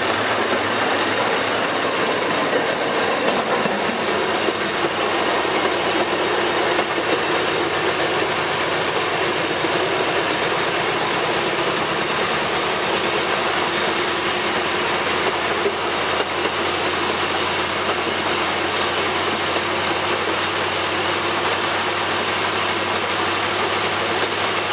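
Narrow-gauge diesel locomotive under way: steady engine running together with wheel and rail noise, heard from on board.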